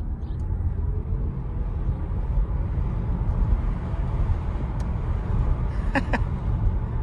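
Volkswagen Passat GTE plug-in hybrid pulling away at low speed, heard from inside the cabin: a steady low rumble of road and tyres, with a faint hum rising in pitch over the first couple of seconds. Two short, sharp chirps sound about six seconds in.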